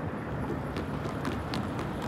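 Railroad grade-crossing warning bell ringing, heard as sharp ticks at about four a second that begin a little under a second in, over a steady low rumble.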